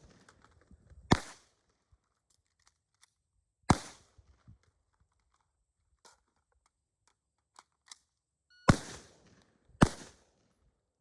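Four gunshots from a carbine and pistol during a reload-and-transition drill: one about a second in, one near four seconds, and two about a second apart near the end. Faint small clicks of weapon handling come between the shots.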